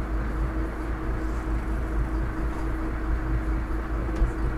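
Fishing boat's engine running steadily: a constant hum over a low rumble, with no change in pitch.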